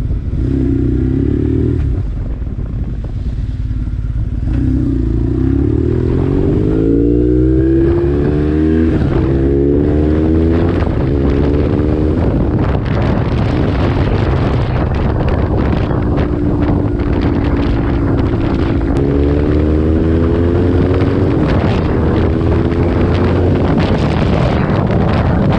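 2002 BMW R1150GS Adventure's boxer twin through a Two Brothers Racing full exhaust with the catalytic converter removed, accelerating through the gears: its pitch climbs and drops back several times at each shift. Wind noise builds as the speed rises.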